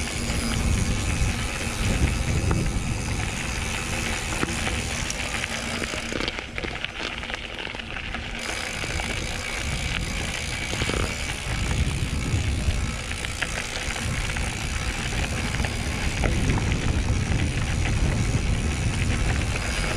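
Scott Scale RC hardtail mountain bike being ridden: a steady rumble of wind and tyre noise with rattle from the bike, going briefly duller and quieter about six seconds in. Music plays underneath.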